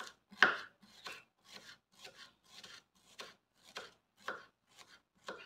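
Kitchen knife slicing shallots thinly on a cutting board: a steady series of short chops, about two a second, the loudest about half a second in.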